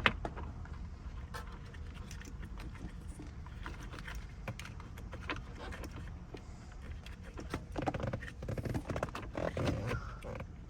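Irregular small clicks and knocks of parts and tools being handled while fitting a steering-wheel hub, with a sharp click at the very start and denser clatter about eight seconds in.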